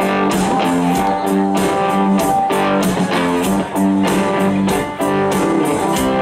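Rock band playing live: electric guitars strumming over a steady drum beat, an instrumental passage without vocals.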